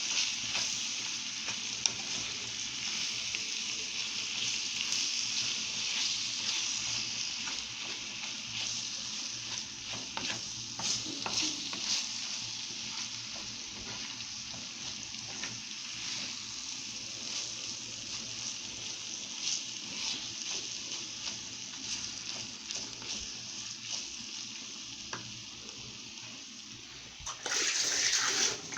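Chopped mallow greens (bakoula) sizzling in oil in a pan while being stirred, with a steady hiss and scattered clicks of the utensil against the pan. Near the end there is a louder rush of noise lasting about a second.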